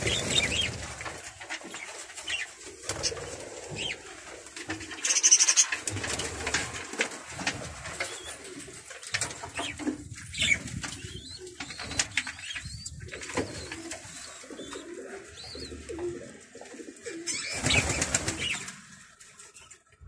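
Pigeons cooing in repeated low pulses, mixed with the busy high chirping of a flock of budgerigars. Two louder rustling bursts come through, about five seconds in and near the end.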